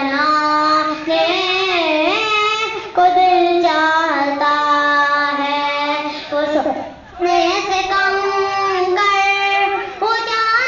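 A boy reciting a naat unaccompanied: long, held, wavering notes sung into a microphone, with a short pause for breath about seven seconds in.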